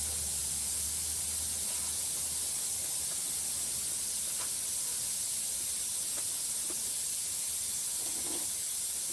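Steady high hiss throughout, with a low hum in the first couple of seconds and a few faint clicks.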